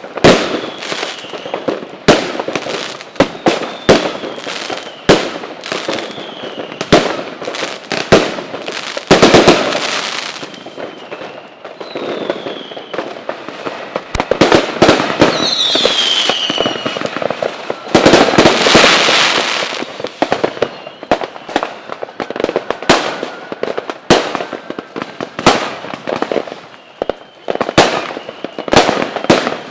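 Fireworks going off: a string of sharp bangs, with dense stretches of rapid crackling about a third and two thirds of the way through. Several whistles that fall in pitch run among the bangs.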